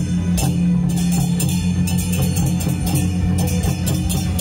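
Taiwanese temple-procession music: drum and cymbal strikes, about two to three a second, over a low steady held tone.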